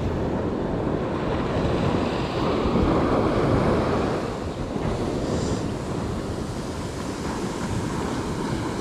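Surf washing onto a beach, with wind buffeting the microphone as a steady low rumble.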